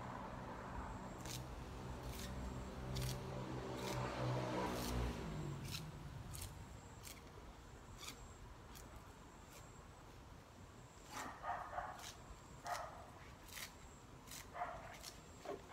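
Sharp snaps and clicks recur throughout as leafy branches are stripped. An engine hum falls in pitch and fades away over the first six seconds, and a dog gives short barks from about eleven seconds in.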